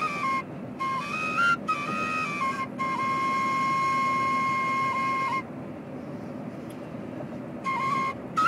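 Shababeh, a cane shepherd's flute, played in short phrases of stepping notes with quick breath breaks, then one long held note. The flute stops for about two seconds past the middle, leaving only the steady road noise of the moving car, and comes back in near the end.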